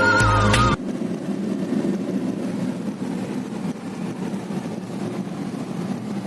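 Background music cuts off suddenly about a second in, followed by a steady low rumbling noise.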